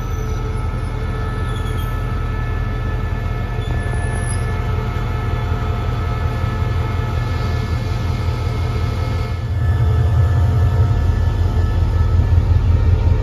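Diesel train at a station: a steady low engine rumble with several steady tones above it, getting louder about nine and a half seconds in.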